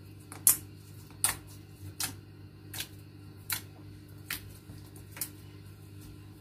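Clear slime being pressed and poked with fingertips, giving sharp little pops about every three-quarters of a second, seven in all, over a faint steady hum.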